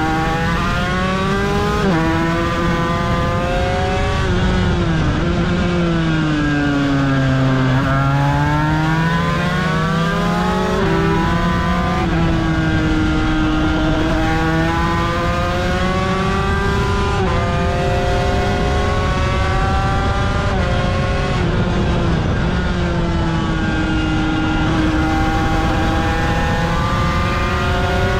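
Aprilia RS250's two-stroke V-twin racing engine at speed, heard onboard. Its pitch drops abruptly at several gear changes, winds down smoothly a few seconds in, then climbs again as the bike accelerates.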